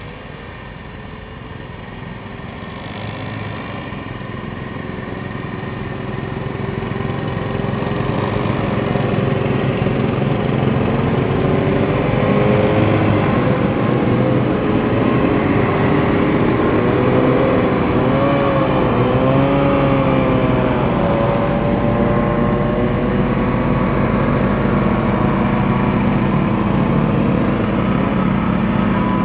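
Several vintage snowmobile engines running together, growing louder over about the first ten seconds and then holding steady, their pitches wavering as the throttles open and close.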